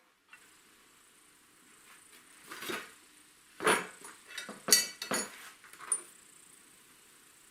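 A handful of short knocks and clinks, as of hard objects being handled and set down, most of them between about two and a half and six seconds in.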